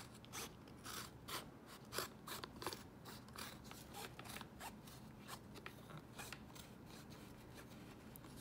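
Scissors cutting through an Apple iPhone leather case, leather glued over a thin plastic shell: a run of crisp snips, several a second at first, then softer and more spaced out.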